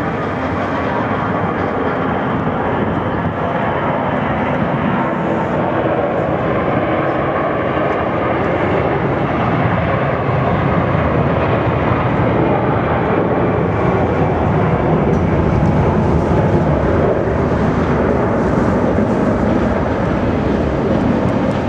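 Airbus A340-300's four CFM56 turbofan engines at takeoff thrust through the takeoff roll and liftoff: a loud, steady jet-engine rumble that slowly grows louder and then holds.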